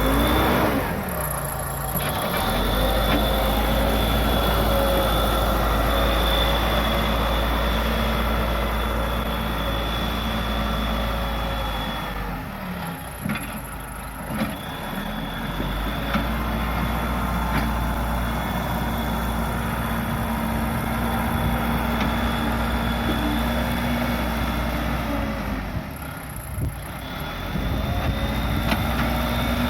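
Case 580 Super L backhoe loader's diesel engine running under load, its pitch holding steady for long stretches and dropping twice, about halfway through and near the end, before picking up again. A thin, high, steady whine runs above the engine.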